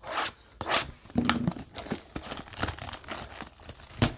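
Plastic wrapping being torn and crinkled off a trading card hobby box, in a run of irregular crackles and rips.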